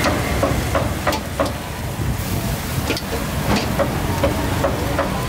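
Busy street-market ambience: a steady low rumble of traffic with scattered sharp clicks and clinks.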